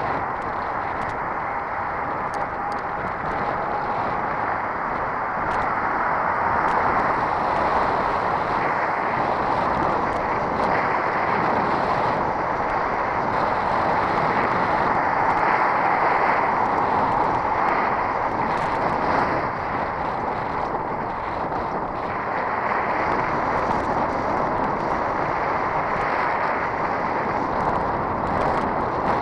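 Steady, muffled rush of wind and road noise from a bicycle rolling along a paved road, picked up by a camera mounted on the bike, swelling slightly in the middle, with faint light ticks.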